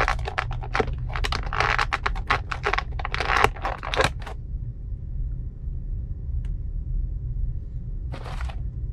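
Clear plastic packaging bags crinkling and rustling under handling for about four seconds, a dense run of crackly clicks. Then it goes quieter over a faint steady hum, with a single click and a short burst of crinkling near the end.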